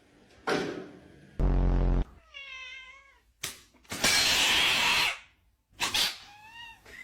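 A cat meowing twice, each call wavering in pitch. Between the calls come a loud buzzing tone lasting about half a second and a loud rushing burst of about a second.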